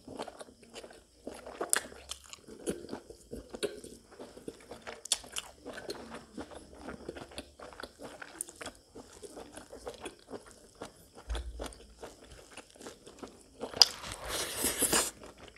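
Close-miked mukbang eating: a person chewing and biting pork with rice eaten by hand, with many short wet clicks and smacks. A louder, rough noisy stretch comes near the end as a handful goes into the mouth.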